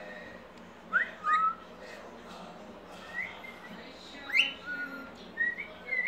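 Cockatiel whistling in short rising notes. There are two about a second in, then a run of them over the last three seconds.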